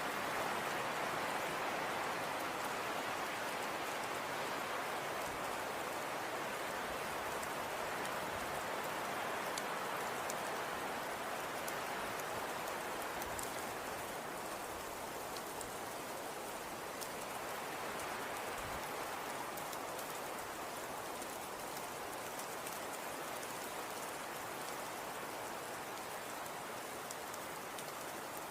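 Snowstorm wind: a steady hissing rush that swells and eases slowly, with faint fine ticks of driven snow over it.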